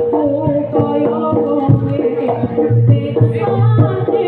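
Live East Javanese jaranan music from a gamelan ensemble: frequent hand-drum strokes under a steady held tone and a shifting melody line.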